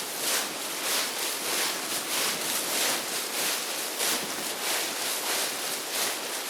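A walker's footsteps crunching on a gravel path at an even pace, about one and a half steps a second.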